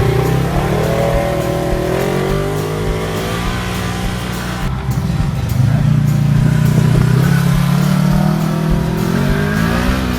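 A motor vehicle's engine accelerating. Its pitch climbs over the first few seconds, drops back briefly around the middle, then climbs again toward the end.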